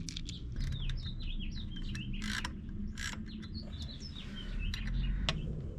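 Small birds chirping in quick, short, downward-sliding notes, over and over, with a few sharp clicks in between and a low steady rumble underneath.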